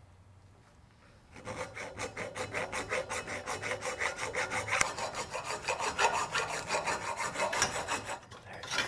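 Rapid rhythmic metal-on-metal rasping, about five strokes a second, from hand work on a Corvair shift linkage held in a vise, fitting its new bronze bushing. It starts about a second and a half in.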